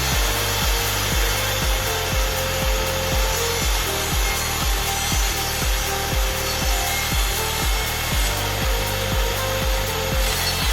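Steady noise of wood being cut with a power saw, under background music with a steady bass beat.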